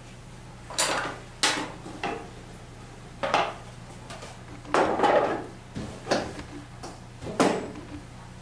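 Dishes and metal utensils clattering at a café's espresso bar: about seven separate knocks and clinks, over a steady low hum.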